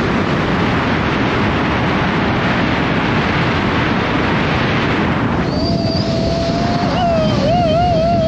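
Strong wind blowing across the microphone, a steady rushing noise. About five and a half seconds in, a wavering whistle-like tone rises above it and wobbles up and down toward the end.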